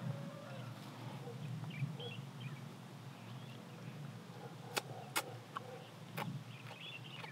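Eating sounds: wet mouth clicks and lip smacks as grilled fish is eaten off the fingers, with three sharp ones in the second half. Faint bird chirps and a low steady rumble sit behind.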